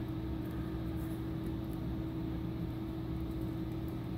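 Steady machine hum with one constant low tone and a rumble beneath it, with a few faint light ticks over it.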